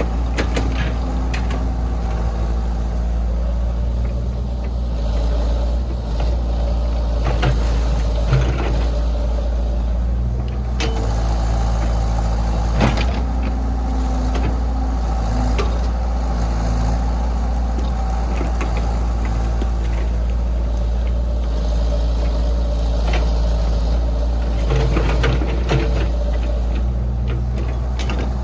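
A heavy diesel engine running steadily under load, with occasional sharp knocks and clanks, the loudest about 13 seconds in.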